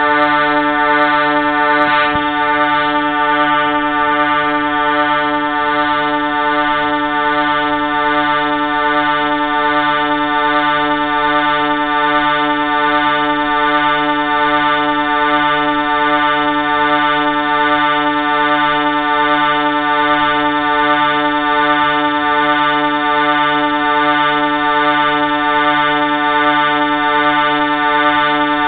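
Train horn sounding one loud chord of several notes, held steady without a break.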